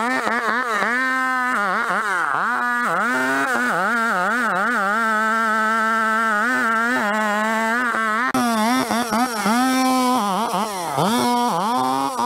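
Vintage McCulloch two-stroke chainsaw running at high revs in a cut. Its pitch dips and recovers again and again as the chain loads in the wood.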